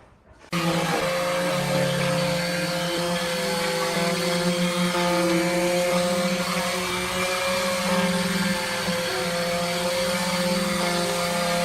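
Sawmill saw running steadily with a constant motor hum and a high whine, cutting in suddenly about half a second in.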